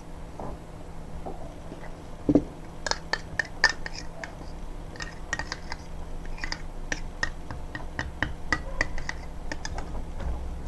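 A utensil clicking and scraping against a container as slime ingredients are mixed: many irregular sharp ticks, after one dull knock about two seconds in.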